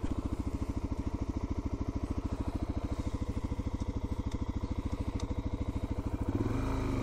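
An engine idling with a rapid, even pulse that smooths into a steadier hum about six seconds in.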